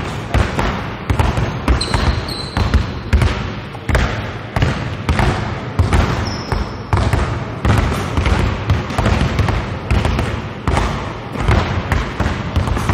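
Several basketballs being dribbled on a hardwood gym floor and tapped against a backboard, many overlapping bounces in an irregular rhythm. There are a couple of short high squeaks, about two and six seconds in.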